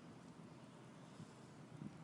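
Near silence: faint steady hum and hiss, with a couple of soft knocks near the end.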